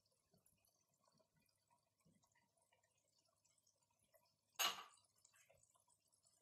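Near silence with a few faint ticks, then one sharp knock about four and a half seconds in.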